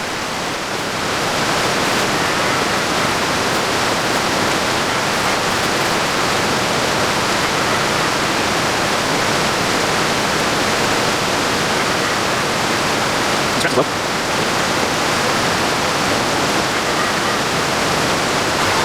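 Waterfall rushing steadily, a constant hiss of falling water, with one brief tap about fourteen seconds in.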